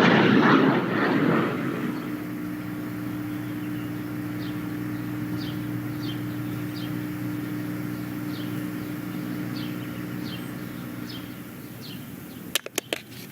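A loud rushing noise fades away, giving way to a steady low hum with short, high, falling chirps every half second or so. A few sharp clicks come near the end.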